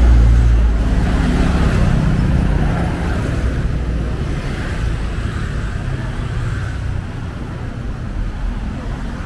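A motor vehicle's engine rumbles close by. It is loudest in the first second, then fades into steady street traffic noise.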